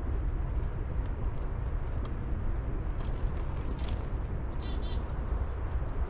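Black-capped chickadee calling: a cluster of short high notes about three and a half seconds in, then a quick run of rapidly repeated lower notes, over a steady low rumble.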